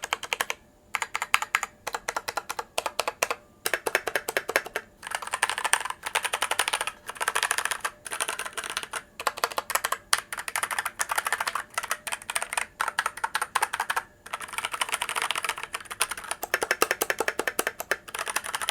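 Typing on a Wizmax WK4 mechanical keyboard fitted with tactile Manic brown switches, not too noisy. It comes as fast runs of key clicks in bursts with brief pauses between them.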